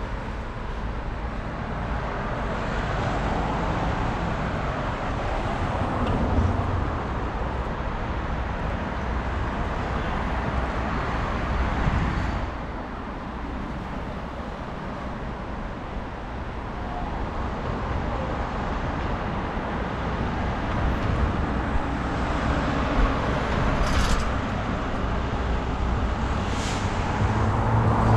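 Passing city road traffic: cars going by, their engine and tyre noise swelling and fading every few seconds over a steady low rumble.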